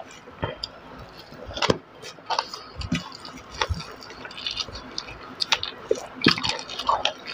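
Close-up eating sounds: fingers squishing and mixing rice with curry on a steel plate, with irregular wet mouth smacks.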